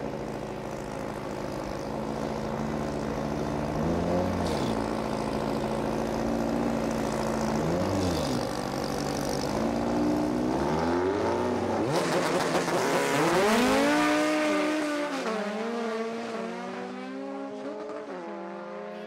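Two drag-racing cars, a Volkswagen Beetle and a Honda Civic, idle and blip their engines at the start line. About twelve seconds in they launch and accelerate hard through the gears. The engine pitch climbs and drops back at each shift, then fades as the cars pull away.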